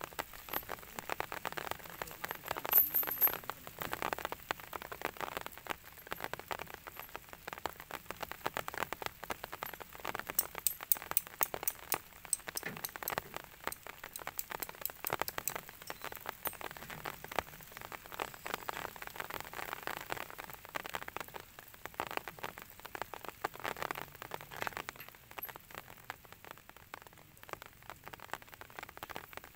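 Rain falling steadily, many drops striking close by.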